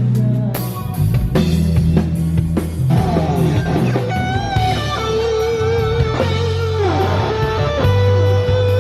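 Band playing rock: an electric guitar lead with string bends and falling slides over bass guitar, with drum hits in the first second. It ends on a long held guitar note with vibrato.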